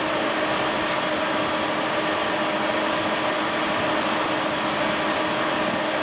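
Steady mechanical whir and hum, like a fan or air handler running, with a few faint constant tones through it.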